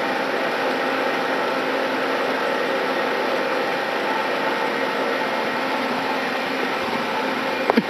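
Dry-mix cement mortar spraying machine running steadily, a constant mechanical noise with a faint hum. A couple of short knocks come just before the end.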